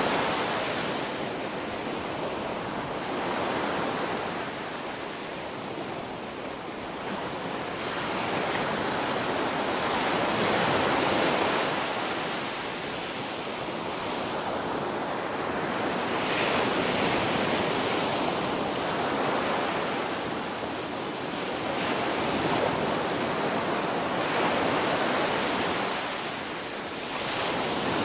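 Ocean surf breaking on a beach: a continuous wash of water noise that swells and eases as each wave comes in, every few seconds.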